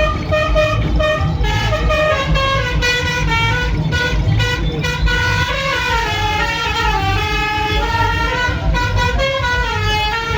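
Bus musical horn playing a tune of short notes that step and slide up and down in pitch, over a low vehicle rumble.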